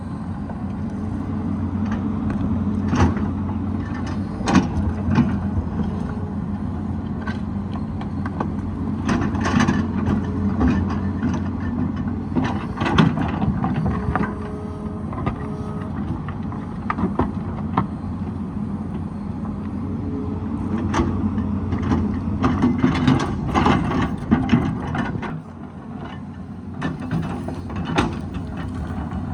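Excavator's diesel engine running steadily under load, with irregular clanks and knocks of the bucket and rock throughout. The engine drops back near the end.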